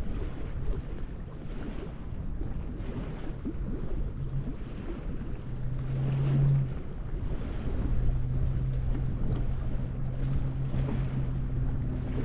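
Wind buffeting the microphone, with choppy lake water lapping against a concrete shore. A steady low engine hum comes in about four seconds in, drops out briefly, then returns.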